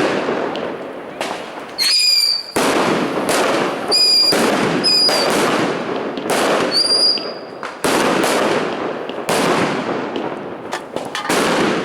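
Fireworks going off: a string of loud bangs, each with a long echoing tail, with several short high-pitched whistles mixed in.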